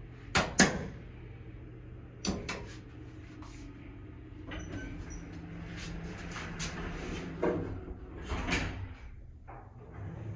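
Elevator in operation: a steady low hum broken by a series of mechanical clunks and knocks from the doors and car, the loudest pair about half a second in.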